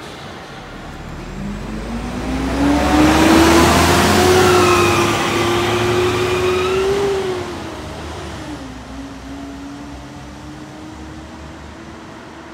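City bus engine accelerating away. Its note climbs and holds, drops about two-thirds of the way through, then climbs slowly again as the road noise fades.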